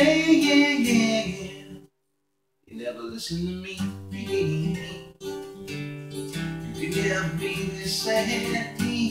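Gibson Hummingbird acoustic guitar strummed, playing the chords of a song. The sound cuts out completely for under a second about two seconds in, then the strumming carries on.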